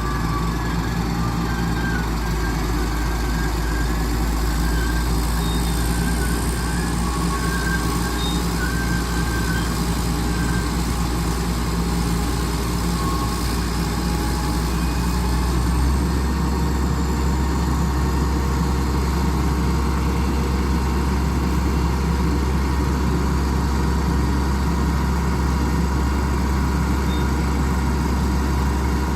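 Diesel engine of a PPM Terex A600 60-ton mobile crane running steadily, its low note shifting a little about halfway through.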